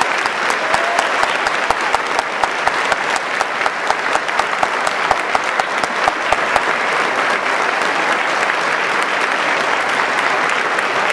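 Audience applauding right after an orchestra's final chord. A few sharp, close claps at about two a second stand out for the first six seconds or so, then the applause evens out into a dense steady patter.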